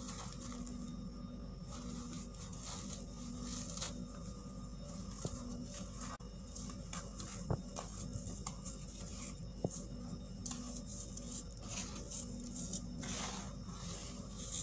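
Fingers crumbling and raking dry powdered baking soda, giving soft, uneven rubbing and crunchy hissing with two sharp clicks a couple of seconds apart midway. A steady low hum runs underneath.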